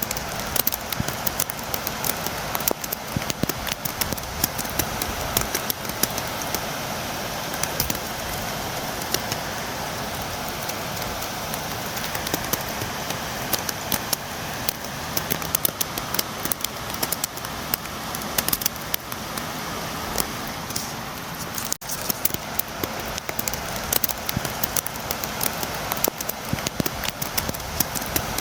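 Steady rain, with many sharp taps of drops striking a window.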